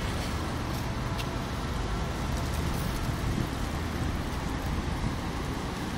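Steady outdoor road-traffic noise, a low rumble under an even hiss.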